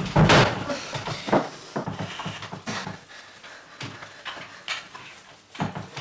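A physical struggle: a loud knock and scuffling at the start, then smaller knocks, wooden chair creaks and rustling that thin out as a person is held down on a wooden chair and tied to it with rope.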